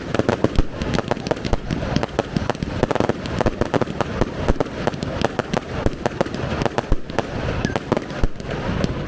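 Fireworks display going off: a dense, continuous barrage of rapid bangs and crackling from shells and cakes bursting overhead.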